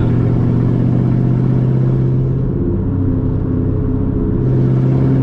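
Chevrolet Camaro SS's 6.2-litre V8 running at cruising speed, a steady low engine and exhaust hum; the engine note dips about halfway through and comes back up near the end, as the throttle is eased and reapplied.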